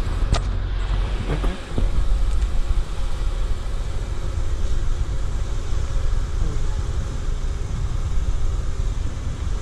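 Steady low rumble of a car driving, heard from inside the cabin: engine and road noise of a 2004 Honda Accord.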